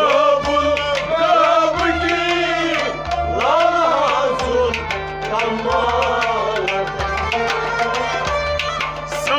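Kashmiri Sufi devotional music: a harmonium and a string instrument carry a sliding melody over hand-drum strokes in a steady rhythm.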